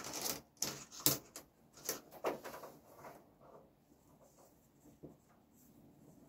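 Handling noise from working on model railway wiring: a quick run of small clicks, knocks and rustles over the first three seconds as a wire is worked through the baseboard, then only faint rustling.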